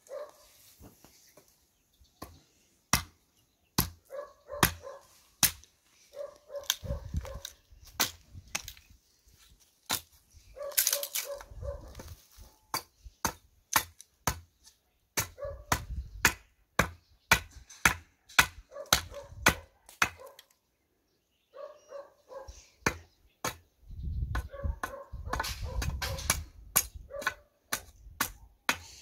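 Sharp, irregular strikes of a hand axe chopping and trimming a wooden stick, with a few heavier thuds. A dog barks in short runs of several barks every few seconds.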